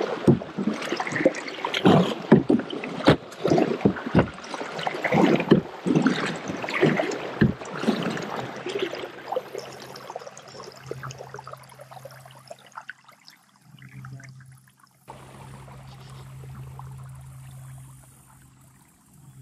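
Double-bladed kayak paddle dipping and pulling through pond water, splashing with each stroke for about the first eight seconds, then dying away to faint water sounds with a low steady hum.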